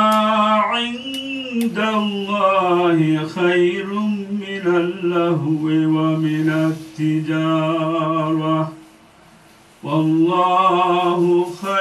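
A single man chanting Arabic Islamic recitation in long, melodic held phrases with ornamented turns. He breaks off for about a second roughly three-quarters of the way in, then starts the next phrase.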